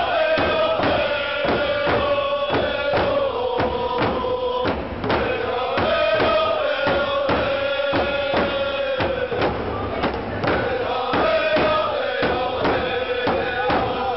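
Music: a song with long held melody notes that slide slowly from one to the next, over a steady beat.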